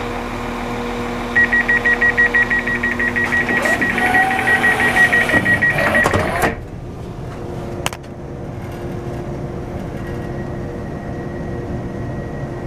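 Train door-closing warning beeping rapidly on one high pitch for about five seconds, then the doors shut with a knock and the outside sound is cut off. A diesel train's steady hum sits underneath, and a single click follows.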